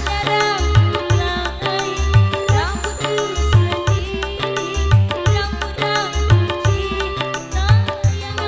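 Live dangdut band music: a steady beat of hand drums and bass under a melody with sliding notes.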